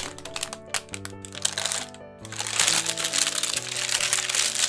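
Baking paper crinkling and crackling as it is pulled open and smoothed flat around a slab of baked granola, busiest from about halfway through. Background music with a steady melody plays throughout.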